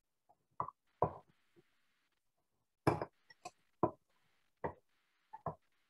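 Eating sounds: a run of short smacks and clicks from a mouth chewing a small piece of century egg on its own, spread unevenly across the few seconds.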